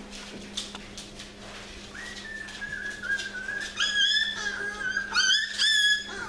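Puppies whining: a thin, high-pitched whine that starts about two seconds in and runs on in long, linked stretches, getting louder toward the end with a few sharp rising squeals.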